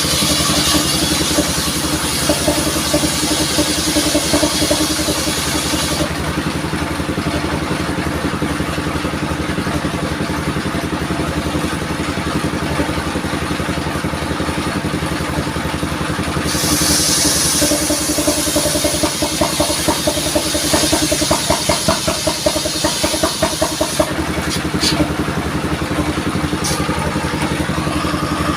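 Engine of a modified mobile sawmill running steadily, with a high hiss laid over it for the first six seconds and again from about the middle to near the end.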